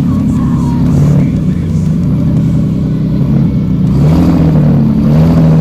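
Engines of compact demolition derby cars running loudly, idling with revs rising and falling.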